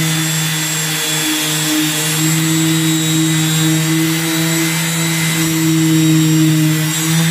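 Random orbital sander running steadily, wet-sanding a car hood's paint to level the high spots left by dent-repair punches: an even hum with a hiss over it.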